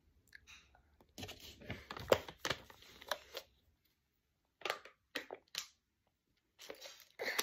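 Thin plastic water bottle crinkling and crackling as it is gripped and squeezed while someone drinks, in short irregular bursts with quiet gaps between.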